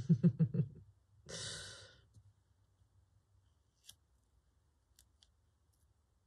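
A woman's short, breathy sigh, just after a few brief voiced sounds, followed by a few faint small clicks.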